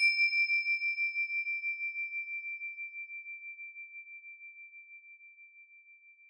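A meditation chime struck once, ringing a single high, clear tone that dies away slowly with a steady pulsing waver, marking the end of the session.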